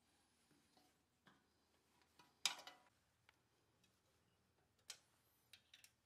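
Faint, scattered metal clicks and taps of an Allen key and bearing-flange parts being handled against a snowblower's steel auger housing, with one louder clack about two and a half seconds in and a few quick ticks near the end.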